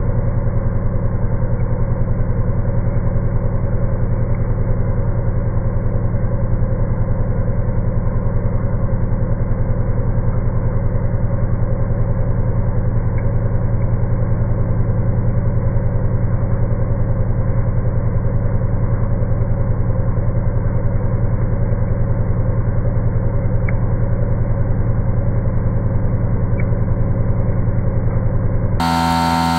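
Slowed-down sound of a 50 mm four-insert face mill cutting aluminium on a BT30 CNC mill: a steady, low, muffled drone with fine rapid pulsing. Under a second before the end it gives way to a brighter sound with clear pitched tones.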